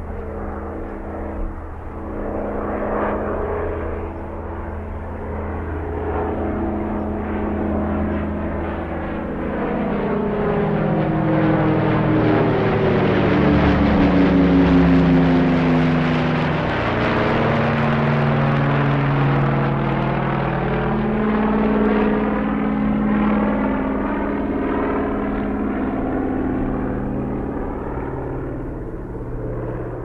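Airplane flying overhead, its engine drone growing to its loudest about halfway through and then fading away. The engine pitch drops as it passes, and the sound swirls as it goes over.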